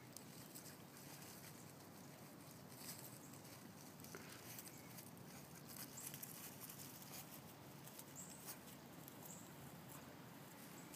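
Faint rustling and crackling of dry leaves and grass as two Bullnese puppies sniff and scrabble about in the leaf litter at the foot of a tree.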